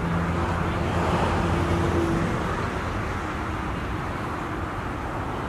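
Road traffic: a motor vehicle's engine hum that fades out about two seconds in, over a steady wash of traffic noise.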